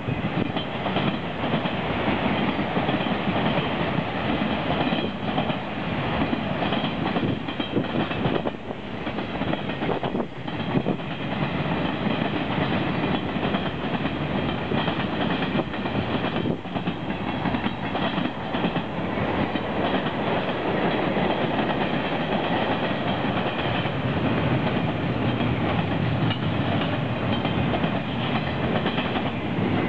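Freight cars of a Canadian National train rolling past: steel wheels rumbling steadily on the rails, with repeated clickety-clack as the wheels cross rail joints.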